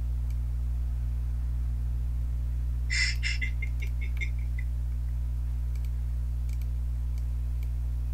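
Steady low electrical hum with faint, scattered computer mouse clicks. About three seconds in comes a brief, high chirping rattle that fades away as a run of quick ticks over about a second and a half.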